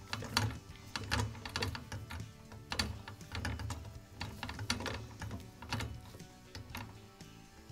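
Small 1/4-inch adjustable torque driver turning a handguard screw down to its 25–30 inch-pound setting: a run of irregular light clicks, over background music.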